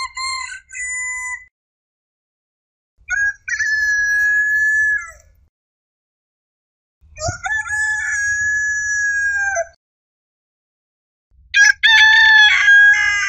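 Rooster crowing, cock-a-doodle-doo, four times with silent gaps: a short crow ending a second or so in, then three longer crows, the last running on past the end.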